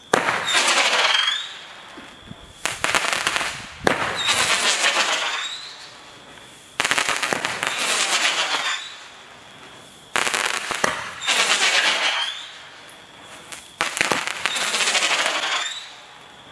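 Pyro Diablo Witch's Magic Candle roman candle firing its balls one after another: a sharp pop every three to four seconds, each followed by a second or two of crackling.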